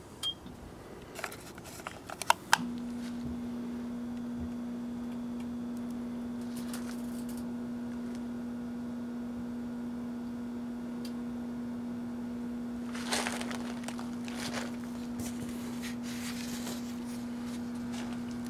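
A 1984 Kenmore microwave oven started with a few clicks about two and a half seconds in, then running with a steady hum. A few brief crackles come about two-thirds of the way through.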